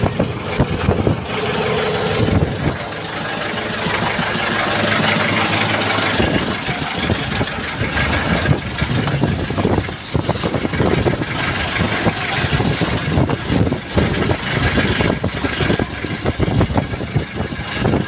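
Outrigger fishing boat's engine running steadily under strong wind buffeting the microphone. The engine's hum is plainest in the first few seconds, after which gusting wind noise dominates.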